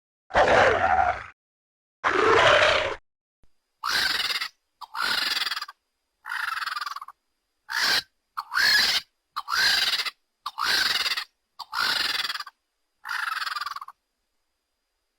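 Designed Troodon dinosaur calls played one after another with silence between them. There are two longer, raspy cries first, then about nine short shrill chirping cries about once a second, each bending up in pitch and then falling away.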